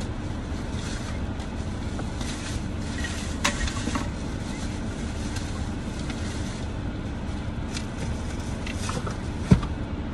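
Steady low rumble of a car idling, heard from inside the cabin, with a couple of light clicks a few seconds in and one sharp thump near the end.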